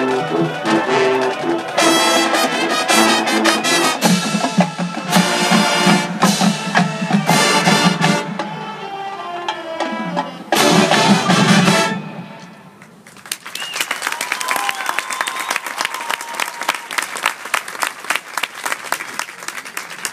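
Marching band brass and drums playing, ending on a loud held chord that cuts off about twelve seconds in; after that the crowd applauds.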